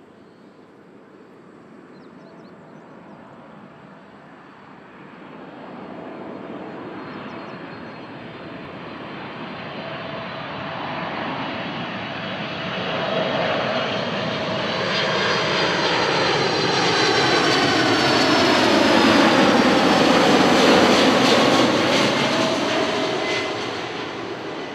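Boeing 747-400F on final approach, its four turbofan engines growing steadily louder as it comes in low. They peak about 20 seconds in as it passes close, with high whining tones sliding down in pitch, then begin to fade.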